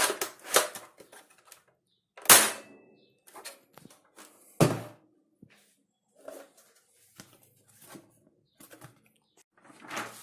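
Sharp clicks and knocks from handling a homemade plastic-sheet L96 airsoft sniper rifle and its cardboard target box. The loudest come about two and about four and a half seconds in, the second a heavier thunk, followed by fainter scattered taps and a paper rustle near the end.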